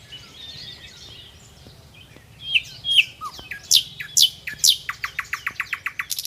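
Birds calling: a few down-slurred whistled notes, then three loud, sharply falling calls about four seconds in, followed by a fast, even run of short chirps, about eight a second, near the end.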